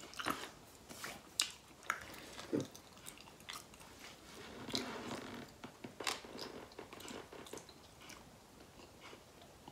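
A person chewing, with irregular faint mouth clicks and smacks. The chewing is audible because of the chili heat of the food.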